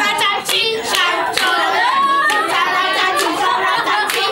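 A group of voices singing together, with hands clapping along about once a second.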